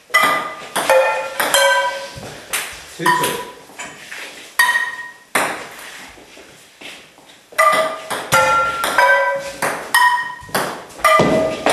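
A table tennis rally played with frying pans: quick sharp clacks as the ball is struck by the metal pans, many with a short bright ring from the pan, mixed with the ball bouncing on the table. The hits come fast at first, ease off for about two seconds in the middle, then come fast again.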